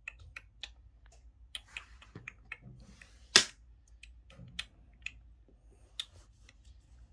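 Plastic janggi pieces clicking on a wooden board as a piece is picked up and moved: light scattered clicks, with one sharp click about three and a half seconds in.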